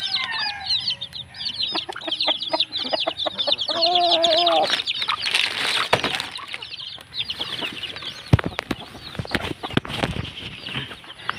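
A crowd of young chicks peeping constantly in quick high repeated calls, with an adult chicken giving a short lower call about four seconds in. Sharp knocks and rustling come through in the second half.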